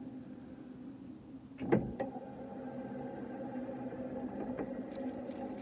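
Hand-cranked forge blower whirring steadily as it is turned, forcing air into a freshly lit kindling fire; a single knock about two seconds in.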